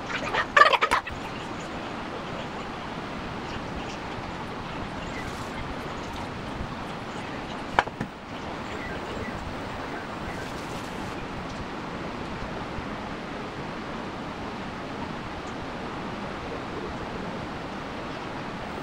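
Steady background hiss with a short burst of rapid, pitched, fowl-like calls in the first second, and a single sharp click about eight seconds in.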